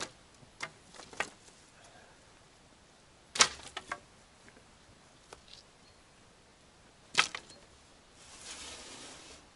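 Sharp knocks and clatters of objects being handled on an outdoor table, a few light ones at first and two louder ones about three and a half and seven seconds in, followed by about a second of rustling noise near the end.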